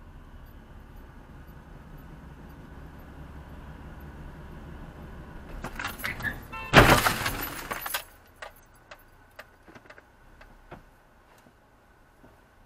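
Road noise inside a moving car, then, about six seconds in, a loud crunching, scraping side-swipe collision with another car that lasts a second or two, followed by a few light clicks and rattles.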